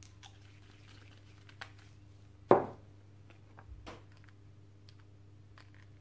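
Light clicks of a gloved hand handling a small plastic tinter dropper bottle over a resin mixing cup, with one sharp knock about two and a half seconds in, over a steady low hum.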